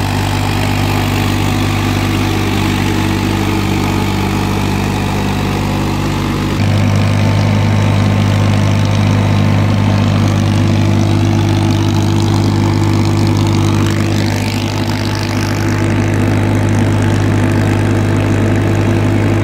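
Farmtrac tractor's diesel engine running steadily under load while pulling a spring-tine cultivator through the soil. It gets louder about six and a half seconds in.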